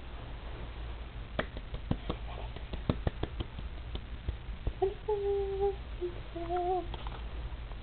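Scattered light taps and knocks, then about five seconds in a person's voice in two short held notes, like humming or a sing-song call.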